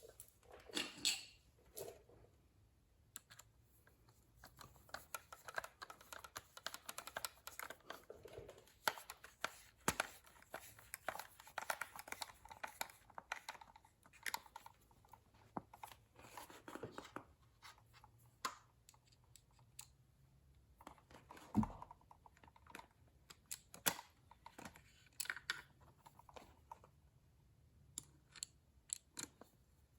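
Faint, scattered clicks, scrapes and rustles of plastic console trim and screws being handled and fitted back into place around a car's gear shifter, with one sharper knock about two-thirds of the way through.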